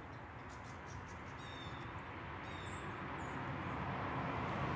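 A car approaching along the road, its engine and tyre noise growing steadily louder, with a few short bird chirps in the background.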